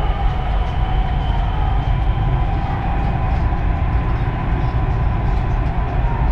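Dubai Metro train running, heard from inside the car: a steady rumble with a faint steady whine over it.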